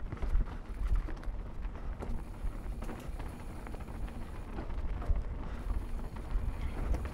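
Mountain bike rolling down a dirt singletrack: tyres on the trail under a steady low rumble, with irregular rattles and knocks from the bike over bumps.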